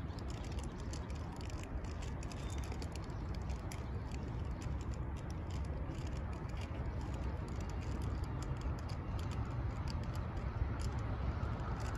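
Steady low outdoor rumble with many scattered faint clicks and ticks, growing slightly louder toward the end.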